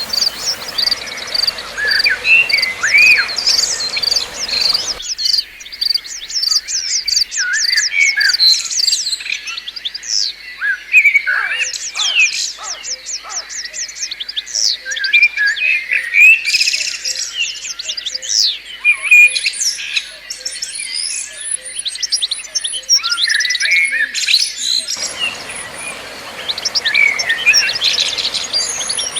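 White-eyes (pleci) chirping and singing: dense, overlapping high twitters, short calls and rapid trills. For most of the middle the low background drops away and only the high bird sounds remain.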